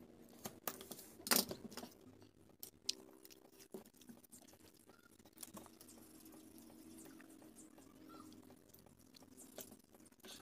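Faint scattered clicks and taps of wooden popsicle sticks being handled and fitted together on a wooden board, with one louder click about a second and a half in.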